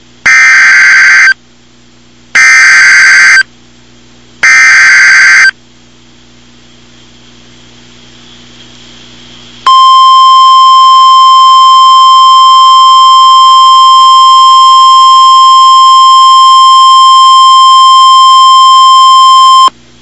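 NOAA Weather Radio emergency alert signal: three one-second bursts of warbling SAME data-header tones, a pause of a few seconds, then the steady 1050 Hz warning alarm tone for about ten seconds, which cuts off abruptly. The signal announces a severe thunderstorm warning.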